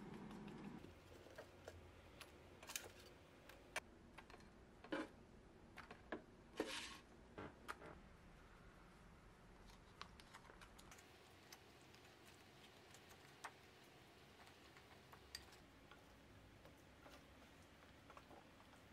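Quiet food-prep handling sounds: scattered small clicks, taps and short plastic rustles from a sauce pouch squeezed over fried shrimp in a ceramic bowl and a wooden spoon tossing them. They come most often in the first half and are fainter after. A low hum stops about a second in.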